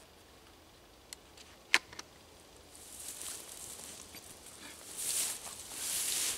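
A few sharp metallic clicks, one much louder than the others about two seconds in, from handling a carbine and its mounted night scope. Then rustling of clothing and undergrowth as the rifle is bent down and laid on the ground.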